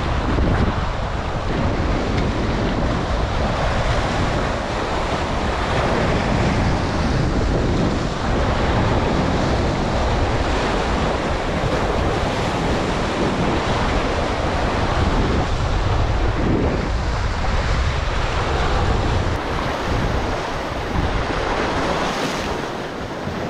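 Wind buffeting the microphone over steady surf washing on the shore, easing a little near the end.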